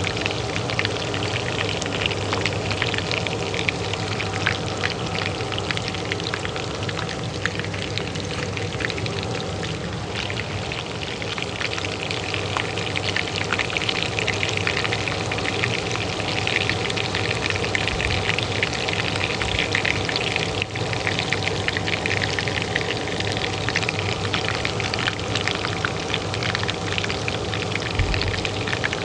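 Oil frying, a dense, steady crackle and sizzle, over the steady hum of a kitchen range hood fan.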